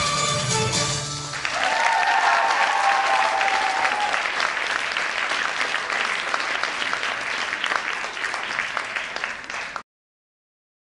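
Oriental belly dance music ends about a second and a half in, and an audience breaks into applause with cheering voices in the first few seconds. The applause cuts off suddenly near the end.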